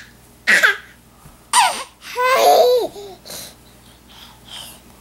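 A baby's high-pitched babbling and laughing in short bursts, the longest and loudest a little after two seconds in, then fainter sounds toward the end.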